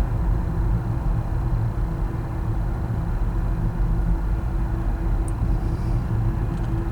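Steady low rumble of distant engines, with a faint steady hum.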